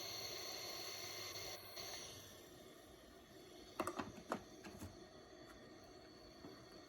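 Vicks VWM845 warm mist humidifier heating its water toward the boil: a faint hiss that fades after about two seconds, then a short cluster of clicks and pops about four seconds in.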